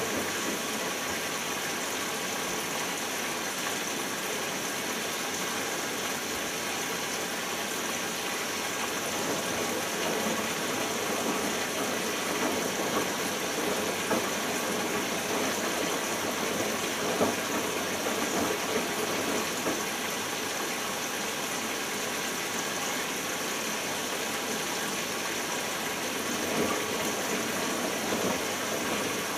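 Bosch Logixx WAS32461 washing machine in its first rinse: a steady rush of water.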